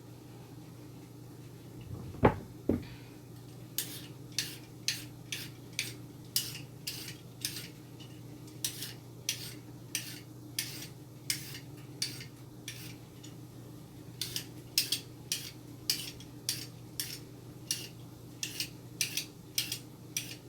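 A vegetable peeler scraping down a carrot in quick, even strokes, about two a second, after a double knock about two seconds in.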